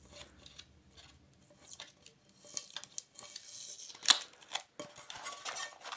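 Sticky tape being peeled and torn off card packaging: a crackly ripping in short stretches, with a sharp snap about four seconds in.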